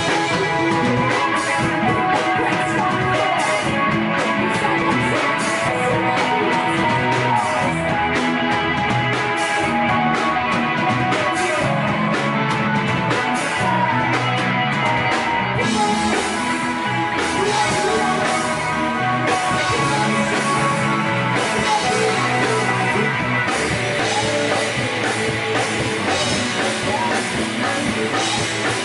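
Live rock band playing: electric guitars over a drum kit, with the cymbals thick for the first half and thinning after about the middle.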